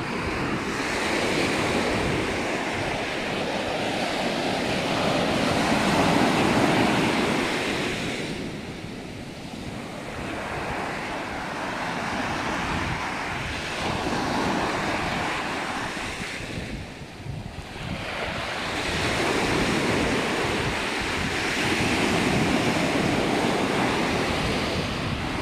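Ocean surf breaking and washing up a sandy beach in slow surges, with two lulls, about nine and seventeen seconds in. Wind buffets the microphone.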